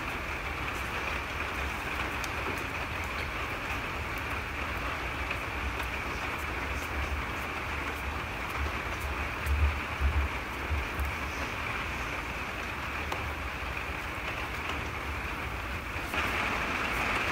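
Steady hiss, with a few low thumps about halfway through.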